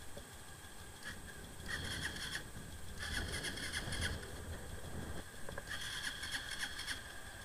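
Motorcycle engine being cranked over in three short bursts, each under a second long, without catching.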